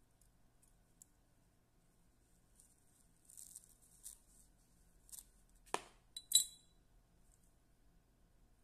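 Soft rustling of hands handling fly-tying materials, then a sharp click and, about half a second later, a short metallic clink with a brief ring as small fly-tying tools are handled at the vise.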